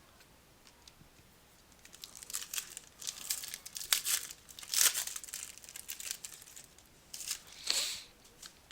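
A 2014 Prizm football card pack's wrapper being torn open and crinkled, in irregular scratchy rustles that begin about two seconds in and come again near the end.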